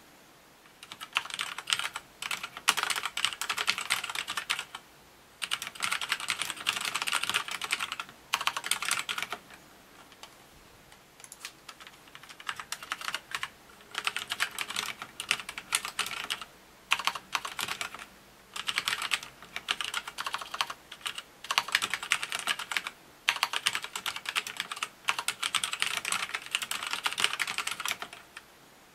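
Typing on a Scorpius M10TFL mechanical keyboard with red linear switches: fast runs of keystroke clacks in bursts, with brief pauses and a few seconds of sparse, lighter keystrokes about a third of the way in.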